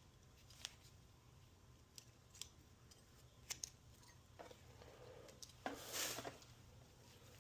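Faint scattered metal clicks and short rustling scrapes of a drive chain and its master link being handled, as the master link is worked off the new chain.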